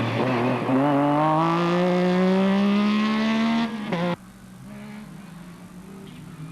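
MG Metro 6R4 rally car's V6 engine accelerating hard, its pitch climbing steadily through a gear after a brief lift about half a second in. About four seconds in the loud note cuts off suddenly, leaving a quieter, lower engine sound.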